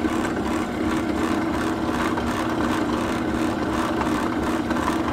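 Drill press motor running steadily with the bit spinning, a constant hum.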